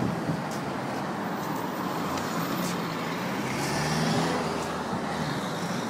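Road traffic going by, with one vehicle growing louder and fading again about four seconds in as it passes.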